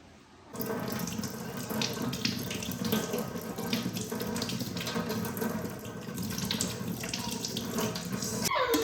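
Water running steadily from a tap into a sink, turned on suddenly about half a second in.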